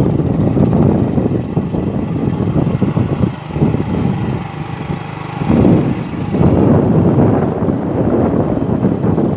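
Wind buffeting the phone's microphone outdoors: a loud, gusty low rumble that eases for a couple of seconds around the middle, then picks up again.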